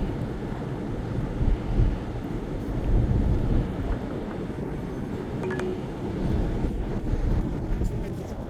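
Wind buffeting the microphone of a moving vehicle, an uneven low rumble that gusts up and down over the steady noise of the drive.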